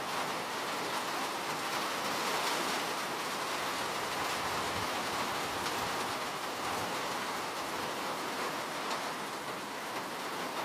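Steady rain, a dense even hiss with faint scattered drop ticks.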